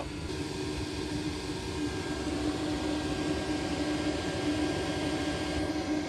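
Autoterm Air 4D diesel heater running with a steady whir and hum from its blower fan as it ramps up its output after ignition.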